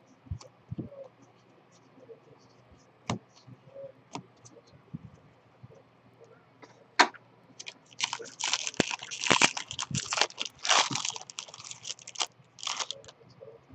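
Foil wrapper of a Topps baseball card jumbo pack crinkling and tearing as it is ripped open, beginning with a sharp crack about halfway through and running for about four seconds. Before that, a few light clicks of cards being handled.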